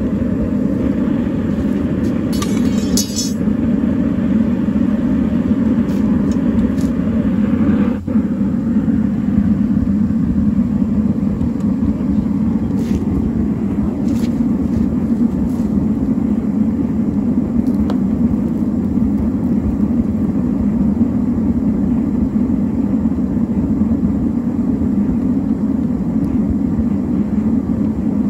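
Metal-melting furnace burner roaring steadily. Near eight seconds a brief break cuts off a higher hiss, leaving a steady low roar.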